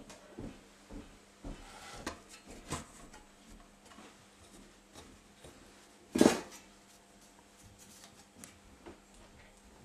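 Metal parts of a home-built thermomechanical generator being handled during disassembly: scattered light clinks, knocks and scrapes of metal on metal, with one louder clank about six seconds in.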